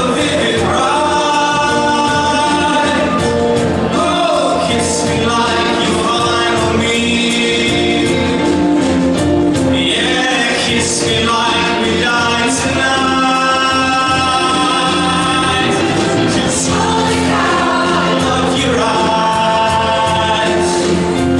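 Large mixed choir of men's and women's voices singing in harmony, holding long chords that change every few seconds.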